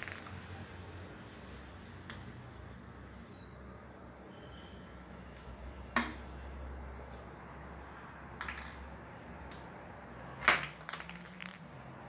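Light clicks and rattles of a small toy ball being batted about by cats on a tiled floor, with two sharper knocks about six seconds in and, loudest, about ten and a half seconds in.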